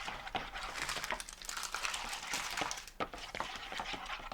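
Magic dust being stirred into water in a small container: irregular scraping and small clicks of the stirrer against the sides.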